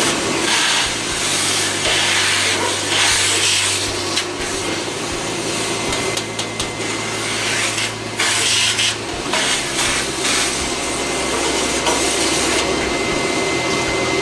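Vacuum cleaner running steadily, its hose nozzle sucking rust dust off a steel griddle top. The rushing noise rises and falls as the nozzle is moved over the surface.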